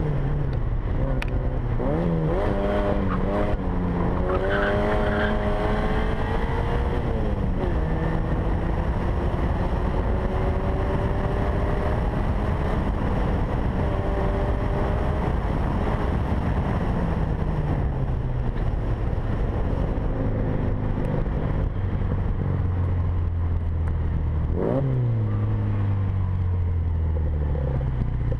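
Leyland Mini Clubman's A-series four-cylinder engine driven hard on a sprint run, its note rising and dropping with gear changes over wind and road noise. The revs fall away through the second half, with a quick rev blip about 25 seconds in.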